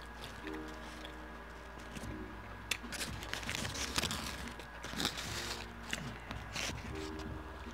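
Close-miked chewing of a bacon cheeseburger: irregular wet smacks and clicks of the mouth, with the burger's paper wrapper crinkling now and then as it is handled.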